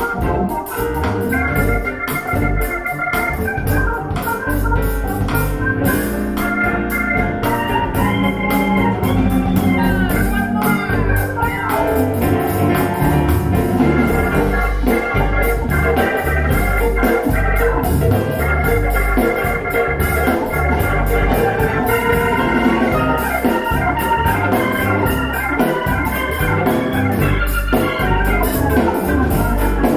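Music played back through a pair of KEF LS50 Black Edition bookshelf speakers: sustained keyboard chords over a steady bass and drum beat.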